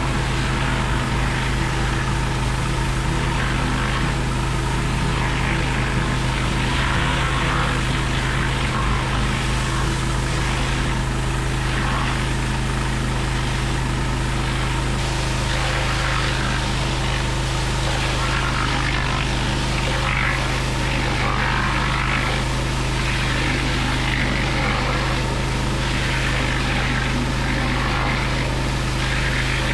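Pressure washer running steadily, driving a flat surface cleaner across patio paving: a constant motor drone under the hiss of high-pressure water spraying onto the stone, which swells and fades unevenly as the cleaner is worked over the slabs.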